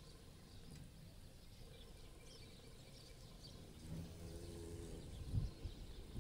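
Faint outdoor ambience: low background noise with a few faint, high bird chirps, and a faint low hum about four seconds in.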